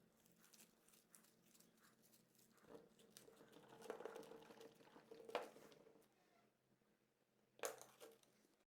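Faint sticky clicks and squishes of clay slime being kneaded and stretched by hand. The clicks are busiest in the middle, with two sharper pops, one about five and a half seconds in and one near the end.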